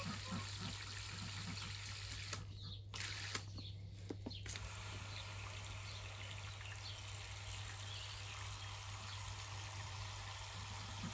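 Water running steadily, stopping briefly twice about two and a half and three and a half seconds in. A low steady hum runs underneath.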